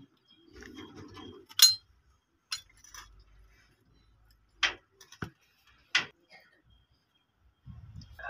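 Sharp metallic clinks and knocks from a PTO gearbox and hydraulic pump unit being handled, about five separate strikes, the loudest about a second and a half in.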